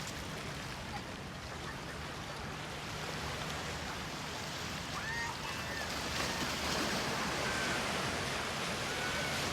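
Ocean surf washing steadily on the beach, with a few brief high calls about halfway through and again near the end.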